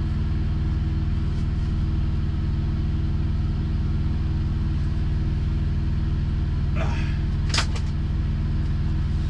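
Semi truck's auxiliary power unit (APU) running steadily with its heater on, a constant low engine drone heard inside the sleeper cab. A short rustle and click about seven seconds in.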